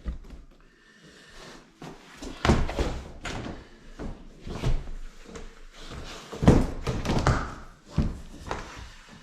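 A series of irregular thuds, bangs and knocks, several seconds apart, with the loudest about two and a half seconds in and again past the middle.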